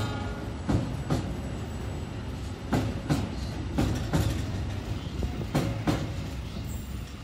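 A train rolling past with a steady rumble, its wheels clacking over rail joints in quick pairs, four times.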